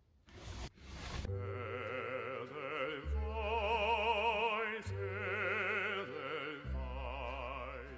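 A short rush of sliding noise as the closet's sliding door is pulled open, then, about a second in, operatic singing with a wide vibrato over sustained orchestral accompaniment, a dramatic music cue that runs until the end.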